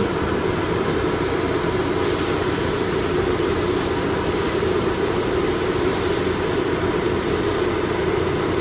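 Steady, even mechanical drone of running machinery around a CNC router, with no strokes or changes.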